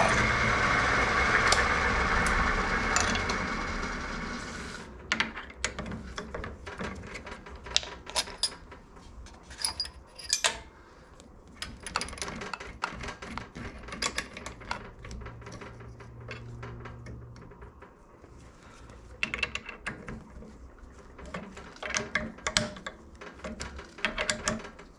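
Walker Turner drill press running steadily, then shutting off about five seconds in; after that, scattered light metallic clicks and clinks of tools and metal being handled.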